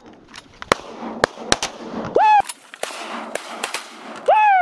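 Volley of shotgun shots from several guns, about eight sharp cracks at uneven intervals, aimed at teal coming into the decoys. A pitched sliding cry comes about two seconds in, and a louder one falling in pitch near the end.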